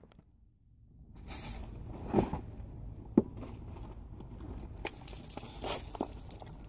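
Car keys and a wallet being handled, with a few short clinks and rustles spaced a second or so apart, over a low steady rumble.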